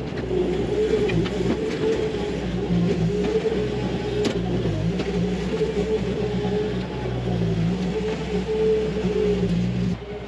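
Bobcat T300 compact track loader's diesel engine running hard as it grades the trail close by, with a steady engine note. The sound drops suddenly near the end.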